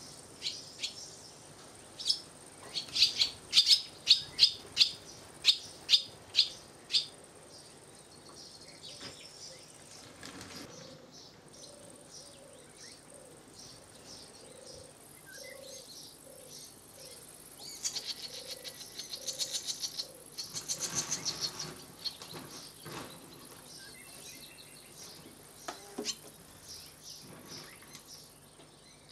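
Barn swallow calling at its mud nest: a run of about a dozen sharp, high chirps early on, then a quick rattling twitter about two-thirds of the way through, with a few scattered chirps later.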